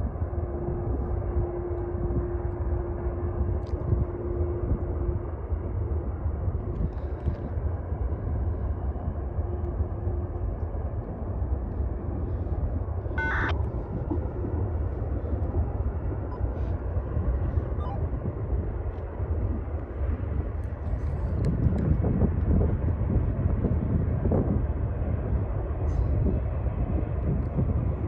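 Distant freight train rumbling as it approaches, the rumble growing louder over the last seven seconds. A single steady tone sounds for the first five seconds, and a short high chirp comes about thirteen seconds in.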